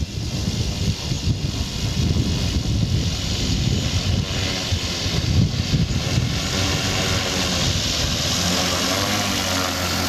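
Giant-scale RC P-51D Mustang's 24x8 two-blade propeller, driven by an electric brushless motor with no sound generator, whirring as the model taxis on grass. A steady pitched hum comes in near the end as the spinning prop gets close.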